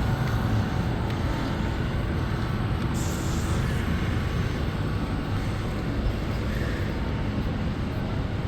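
Steady low rumble of street traffic, with a brief hiss about three seconds in.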